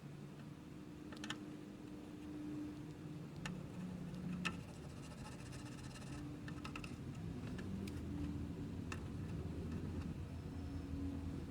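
Small tools being handled at an electronics repair bench: a few light clicks and taps, one sharper click about four and a half seconds in, over a low background hum.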